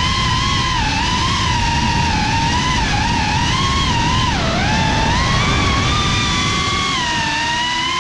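FPV quadcopter's motors and propellers whining, the pitch wavering up and down with the throttle and dipping briefly about four seconds in, over a low rumble of wind on the onboard GoPro.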